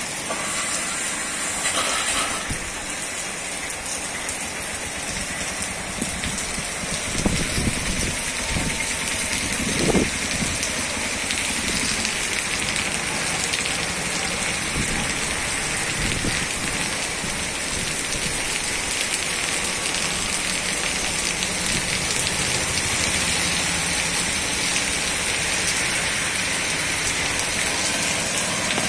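Heavy rain pouring steadily onto a waterlogged road. A few louder thuds come between about seven and ten seconds in, the sharpest near ten seconds.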